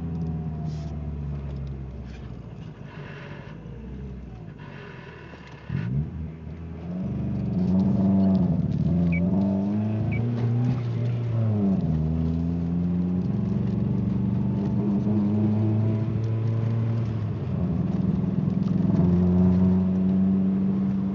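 Ford ZX2's 2.0-litre four-cylinder engine being given gas to try to clear a bad misfire: revs sag over the first few seconds, then, after a brief thump about six seconds in, rise and dip several times before holding at a steadier, higher speed.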